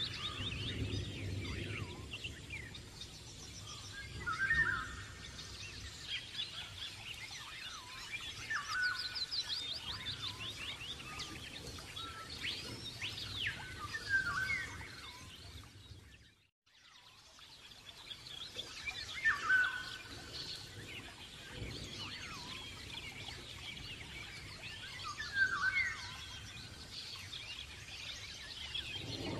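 Small birds chirping and singing: repeated short whistled phrases and trills, many overlapping calls. It fades out briefly about halfway through and comes back.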